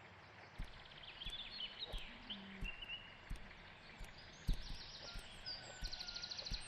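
Birds chirping and trilling in quick repeated runs, with several soft knocks scattered through.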